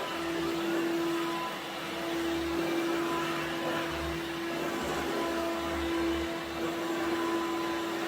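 Bosch Readyy'y Serie 2 cordless stick vacuum cleaner running steadily on a carpet, a constant motor whine over the rush of suction, swelling and dipping slightly as it is worked over the floor.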